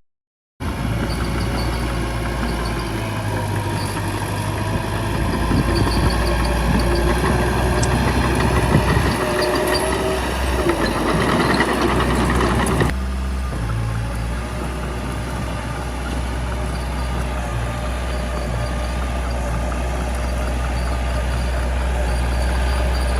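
Small bulldozer's diesel engine running steadily, with clanking and knocks from the machine working during the first half. The sound cuts off for a moment at the start and changes abruptly about halfway through.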